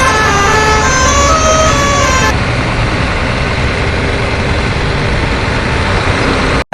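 A short run of horn-like notes stepping in pitch, then a truck engine rumbling steadily. The rumble cuts off abruptly near the end.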